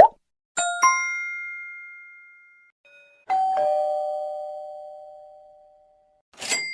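Chime sound effects: a bright bell ding struck twice in quick succession, then a two-note doorbell ding-dong, the second note lower, each ringing out and fading over a couple of seconds. A short noisy burst starts near the end.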